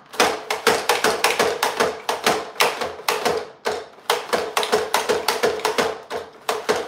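Mandoline slicer worked fast through an onion on its flat, thin-slice blade: a rapid, even run of sharp plastic clacks, about four a second, as the food holder is pumped down against the blade.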